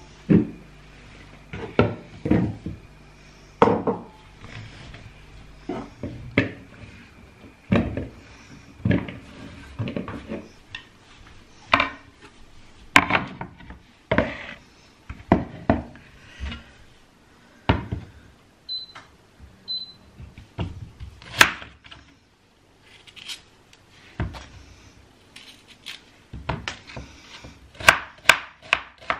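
Kitchen handling noises: bowls and utensils knocked and set down on a worktop in irregular separate clatters. Near the end, a knife starts chopping an onion on a wooden cutting board in a run of quick strikes.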